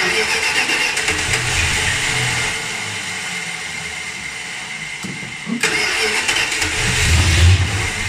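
Dodge Ramcharger's V8 starting up and running, its sound growing deeper and louder near the end as it revs. This is the first start after new pushrods and rocker shafts were fitted to cure a valve-train tick.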